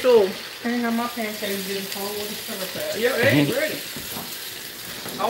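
Eggs sizzling in a nonstick skillet as a silicone spatula stirs and scrambles them. A person's voice sounds over the sizzle in stretches, with no clear words.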